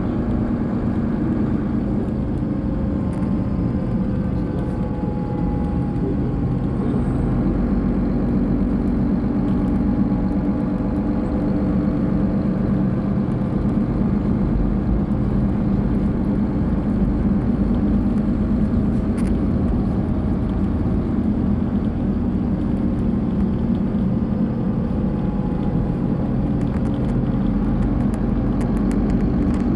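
Diesel engine of a Solaris Urbino 18 III articulated city bus idling steadily at a standstill.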